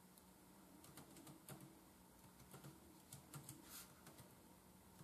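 Faint, irregular taps on an Acer Chromebook C720's keyboard as a Wi-Fi password is typed in, with short runs of keystrokes between pauses.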